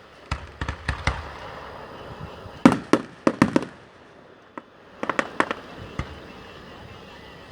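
Fireworks going off: clusters of sharp bangs in quick succession, three rapid runs of about five reports each, with a couple of single bangs between.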